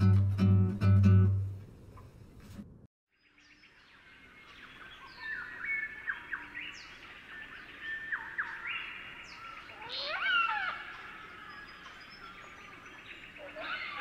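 Acoustic guitar music ending in the first two seconds, then after a brief break a busy chorus of birds calling and chirping, with sweeping calls about ten seconds in.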